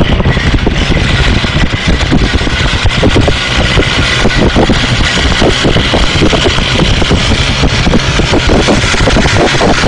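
Motorcycle engine running steadily while the bike is held in a wheelie, under a loud, dense rushing noise.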